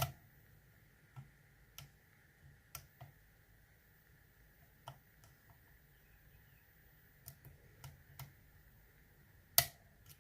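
Hook pick and tension wrench working the pins of an ASSA oval euro cylinder lock: faint, scattered metallic clicks and ticks, with one louder click near the end.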